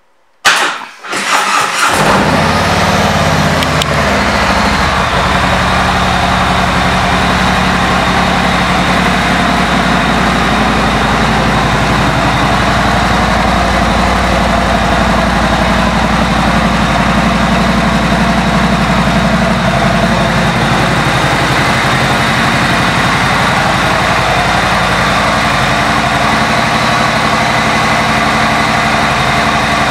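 2017 Harley-Davidson Street Glide Special's Milwaukee-Eight 107 V-twin being started about half a second in. It catches within a second or so, then idles steadily through its aftermarket exhaust.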